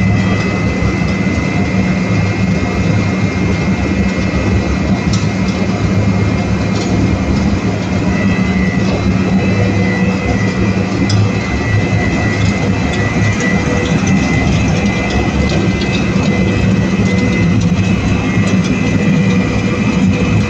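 Limestone grinding plant in operation, the YGM1620 high-pressure suspension grinding mill and its conveyors running: a loud, steady, dense machine noise with low hums and a high whine, and now and then a faint rattling tick.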